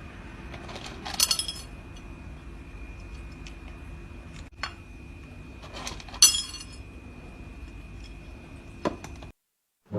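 A handful of light, sharp clinks and taps, like glass or dishes being knocked, over a faint steady hum; the loudest comes a little past the middle.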